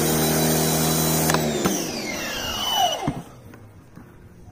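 Sun Joe electric pressure washer running with a steady motor hum and the hiss of water spraying through a foam cannon. About a second and a half in it shuts off with a click, and the motor winds down with a falling whine, stopping about three seconds in.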